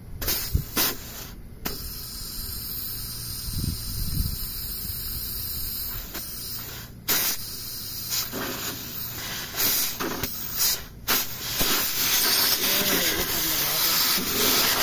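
R410A refrigerant gas hissing out of an air conditioner's open line, breaking off briefly a few times and growing louder near the end. The refrigerant is being let through the system to purge the air, in place of pulling a vacuum.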